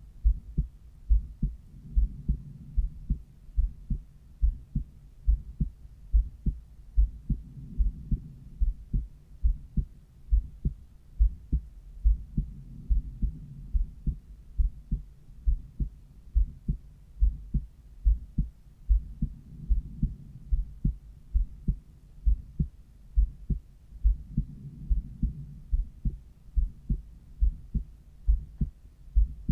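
Human heart sounds picked up through a cardiology stethoscope at the pulmonary valve area: paired lub-dub beats repeating at a steady, regular rate. A softer low rush swells and fades every five to six seconds beneath the beats.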